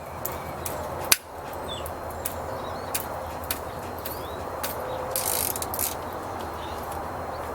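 Ratchet wrench clicking in short, irregular runs as the cylinder head bolts of a 1987 Toyota pickup engine are loosened, with one sharp crack about a second in.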